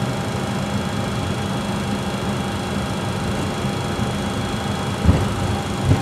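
Cockpit noise of a Challenger business jet taxiing: its engines running steadily with a thin, steady whine over a low hum. Two low thumps come about five and six seconds in.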